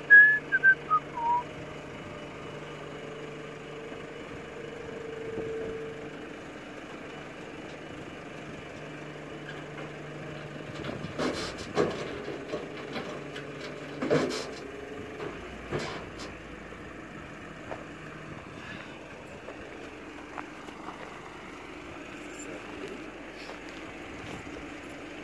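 A short falling whistle at the start, then a tow truck's engine and winch running steadily as a car is drawn up its tilted bed. The hum stops about three quarters of the way through, with several sharp metal clanks a little past the middle.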